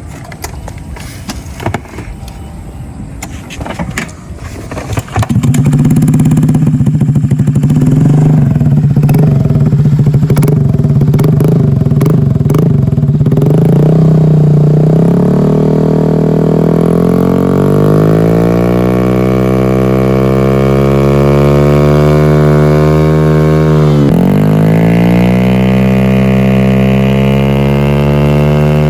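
Motorcycle exhausting through an SC Project pipe with its silencer insert removed. After about five seconds of clicking and handling noise the engine starts and runs loud, then the revs climb slowly, drop sharply and rise again near the end, holding at a raised pitch.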